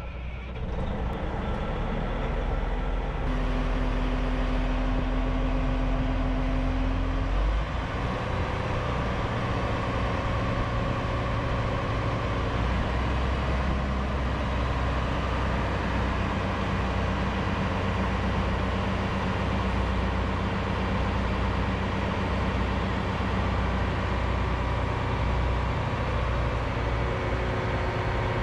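Caterpillar 988H wheel loader's CAT C18 turbo diesel engine running while the boom raises the bucket. It is a steady low rumble that builds over the first few seconds, with a higher hum that drops out about seven seconds in.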